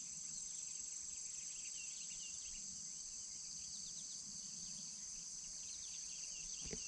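A steady, high-pitched chorus of crickets or similar insects trilling without pause, with scattered faint bird chirps over it. There is a soft knock just before the end.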